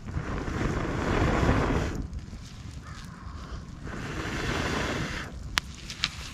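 Someone blowing hard on a newly lit pine-kindling fire to bring it up: a long breath of about two seconds, then a shorter one, each a rushing gust. A couple of sharp snaps near the end.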